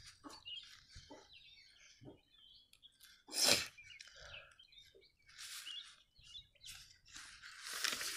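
Paper exam booklet handled, with a page turned and rustling near the end; faint bird chirps in the background and one brief louder noise about three and a half seconds in.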